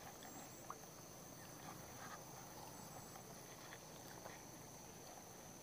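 Near silence: a faint steady high-pitched tone over a low hiss, with a few faint small clicks.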